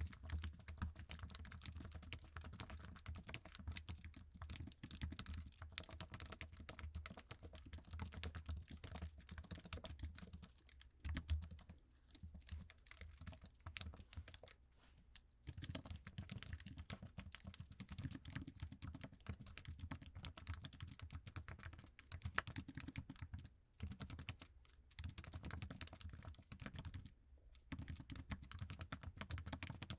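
Fast, continuous typing on an iMac's stock Apple keyboard, its low-travel keys clicking in quick runs, with a few brief pauses.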